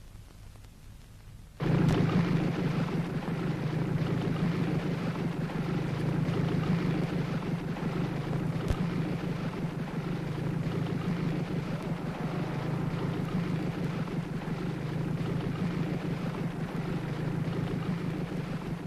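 Car engine and road noise heard from inside the car: a steady low drone that starts abruptly a moment in.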